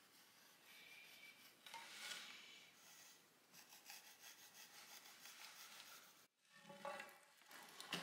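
Faint scratching of a pencil drawn along the side of a wooden bow stave, marking the thickness line, in uneven strokes with a short pause near the end.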